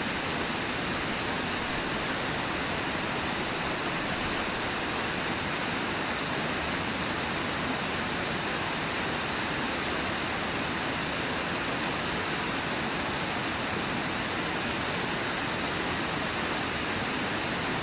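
Steady, unbroken rush of Brooks Falls, white water pouring over the lip of the falls.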